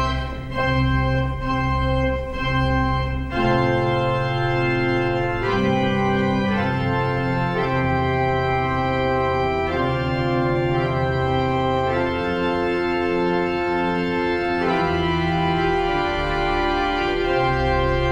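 Organ music: slow, sustained chords, each held for a second or more before moving to the next.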